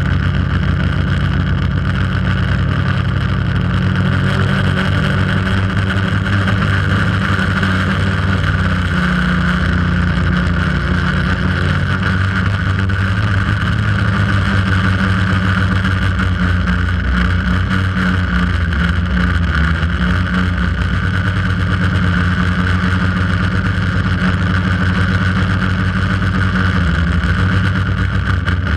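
Quadcopter drone's electric motors and propellers buzzing steadily in flight, heard up close from the drone itself, the pitch shifting a little now and then as it manoeuvres.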